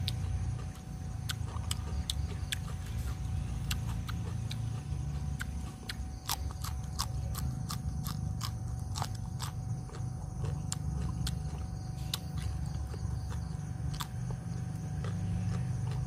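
A person chewing grilled squid close to the microphone: irregular crisp clicks and smacks over a steady low rumble.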